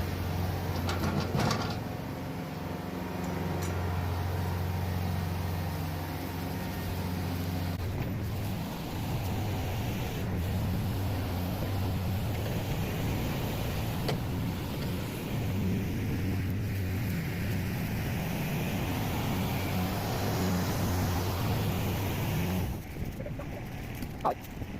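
Tractor engine running as it works the front bucket, a steady low hum that turns rougher about a third of the way in and swells again later. The engine sound drops away suddenly near the end.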